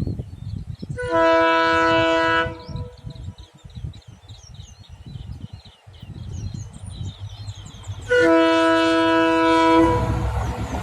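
Locomotive horn of the Devagiri Express sounded twice as the train approaches. Each blast is a steady chord of several tones lasting about one and a half seconds, the two about seven seconds apart. Birds chirp between the blasts, and the rumble of the train rises near the end.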